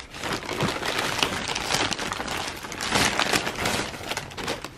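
Thin plastic shopping bags crinkling and rustling as hands rummage through and open them, louder around three seconds in.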